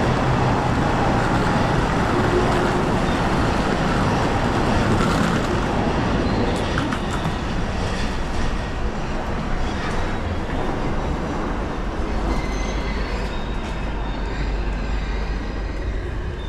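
Electric train running on the rails: a steady rumble of wheels and running gear that eases off slowly, with a low hum underneath in the later part.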